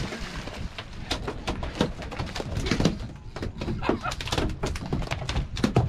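Wind rumble on the microphone with many scattered knocks and slaps against a boat deck, and a few short yelps.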